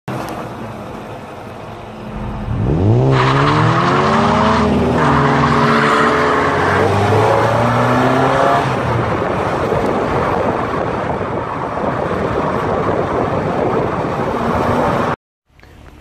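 Car engine revving up under hard acceleration, its pitch climbing, dropping at a gear change about five seconds in and climbing again, then settling into steady driving and road noise that cuts off abruptly near the end.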